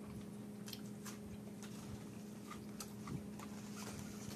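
A man chewing chicken nuggets: faint, irregular mouth and chewing clicks over a steady low hum.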